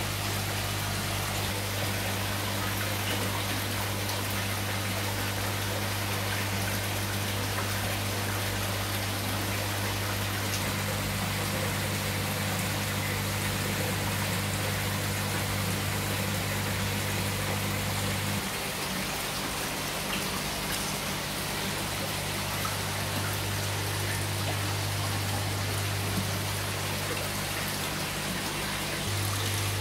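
Aquarium aeration: water bubbling and trickling over a steady low hum of pumps, whose tone shifts about ten and eighteen seconds in.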